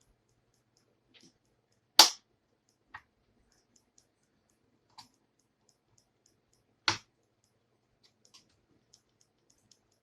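Plastic clips of an HP 15-cs laptop's case snapping loose as the case is pried open: two sharp, loud snaps about five seconds apart, with a couple of fainter clicks between them.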